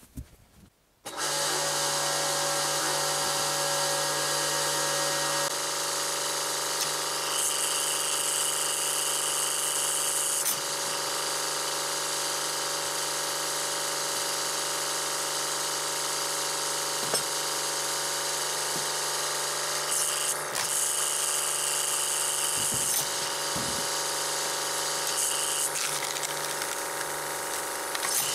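Pressure washer (220 bar, 15 litres a minute) switching on about a second in and running steadily with a hum and hiss, supplying high-pressure water to a water-hydraulic log splitter. A brighter hiss comes in twice for a few seconds.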